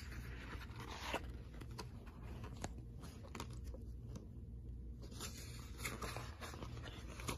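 Paper pages of a picture book being handled and turned: soft rustling with small taps and clicks, once near the start and again about five seconds in, over a faint steady low hum.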